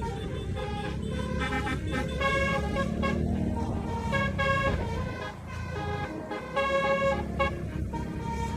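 Basuri 'telolet' musical bus horn playing a tune: a quick run of short horn notes at changing pitches, with a brief gap about five seconds in. A steady low rumble runs underneath.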